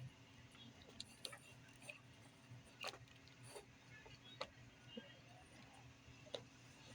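Near silence with a few faint, scattered clicks and taps from small parts being handled by hand.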